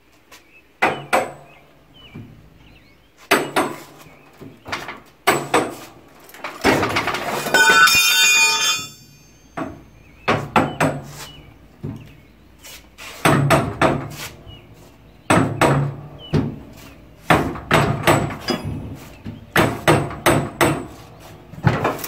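A steel pry bar and a truck tire being worked onto a steel dually rim on a Coats 1010 tire changer: a long series of sharp metal knocks and clanks, with a longer squeaky scrape of rubber and metal about a third of the way in.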